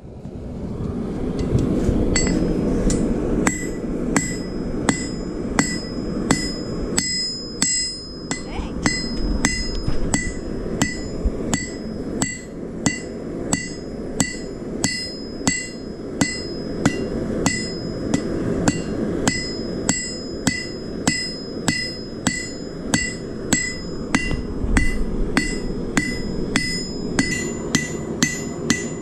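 Blacksmith's hammer striking hot square steel stock on an anvil about one and a half times a second in an even rhythm, each blow ringing. This is forging the bar flat and drawing it down to a smaller square. A steady low rushing sound runs underneath, and the blows begin about two seconds in.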